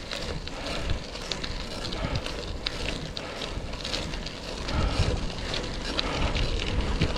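Bicycle tyres rolling over gravel, a steady crunch with many small stones ticking and popping, with wind rumbling on the microphone.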